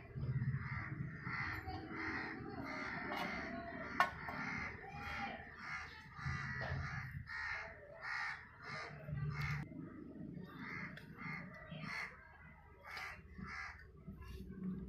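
Crows cawing over and over, about two harsh caws a second, with a faint low hum underneath.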